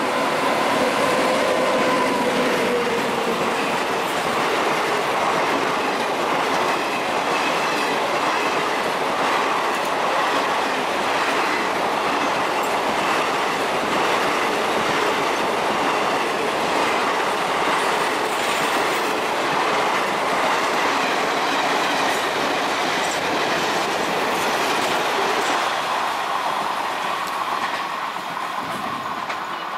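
A 24-coach express train, hauled by a WAP-7 electric locomotive, running through as it picks up speed. The coach wheels make a steady rumble and clatter over the rails, which eases near the end as the train pulls away. The dying tail of the locomotive's horn sounds in the first couple of seconds.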